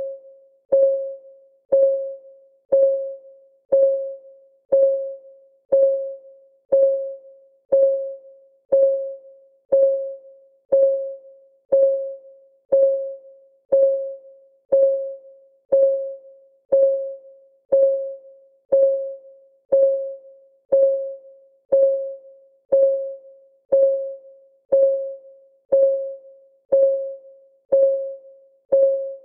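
Clock ticking sound of a countdown timer: one tick a second, each a sharp click with a short pitched ring that fades before the next.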